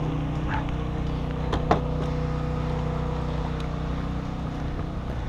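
A steady low hum with several even pitched lines, like a motor or machine running, with two short sharp clicks early on.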